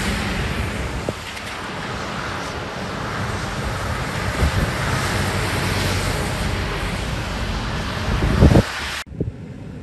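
Storm wind blowing hard and buffeting the microphone, with a stronger gust near the end before the sound cuts off abruptly.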